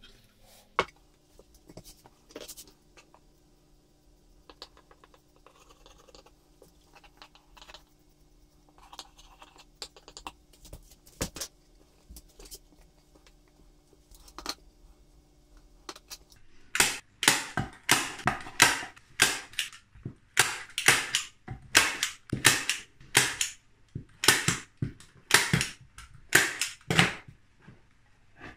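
Quiet handling of fabric and board at first, then a staple gun fastening fake fur fabric to a plywood board, firing a long run of sharp snaps about two a second through the second half.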